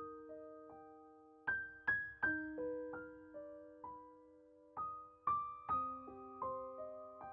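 Slow background piano music: a few notes struck at a time, each left to ring out and fade.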